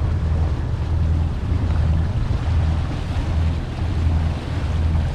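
Sea Ray Sundancer 370 motor yacht underway: its inboard engines give a low rumble that swells and fades about once a second, under steady wind noise on the microphone and the rush of water past the hull.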